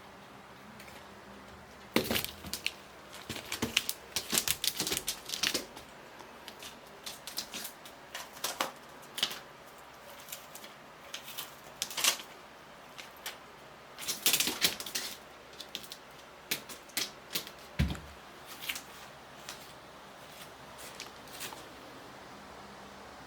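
Irregular bursts of sharp clicks, taps and scrabbling, typical of a kitten's paws and claws on a hard surface during rough play, with one soft thump about three quarters of the way through.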